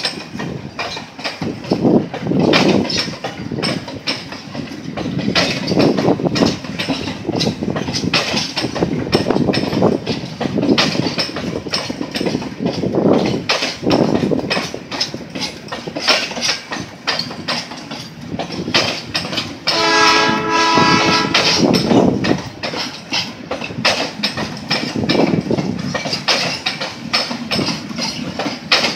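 Freight train of oil tank cars rolling past, its steel wheels clattering and knocking over the rail joints in an uneven clickety-clack with a steady rumble. About twenty seconds in, the train's horn sounds for about two seconds.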